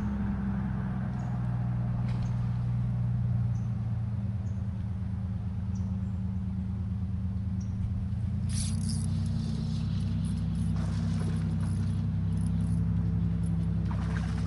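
Steady drone of an airboat engine, its tone shifting about eight and a half seconds in, with a few short scratchy sounds over it from then on.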